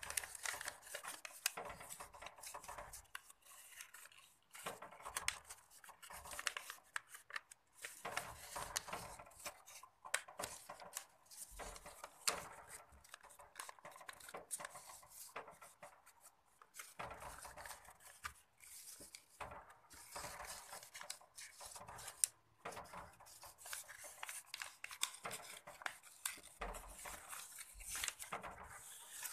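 A sheet of A4 paper being folded and creased by hand on a wooden tabletop: faint, irregular crinkling and rustling with short sharp crackles as the folds are pressed down.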